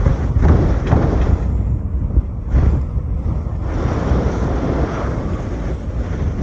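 Strong wind buffeting the microphone in a storm at sea: a heavy, gusting rumble with a rushing hiss over it, rising and falling.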